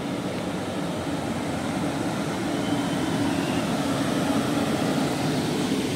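Electric locomotives standing at the platform, a PKP Intercity EP09 with a Vectron coupled behind, give a steady hum with a low drone that grows slightly louder.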